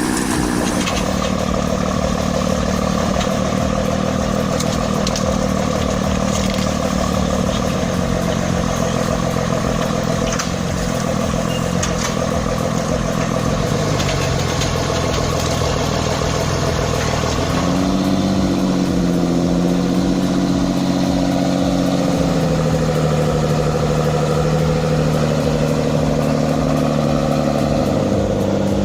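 A large engine running steadily under load, its pitch stepping up about two-thirds of the way through and holding higher.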